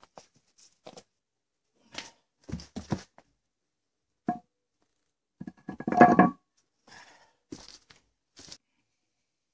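Metal knocks and clanks as a new front brake disc on its hub, from a Land Rover Defender, is handled and set down onto a road wheel, the loudest a ringing clank about six seconds in.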